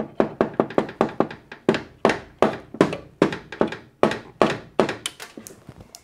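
Rapid light taps on a screwdriver seated in the screws at the top of a washing machine's soap drawer housing, about four or five a second, to free screws set in a plastic insert. The taps grow weaker near the end.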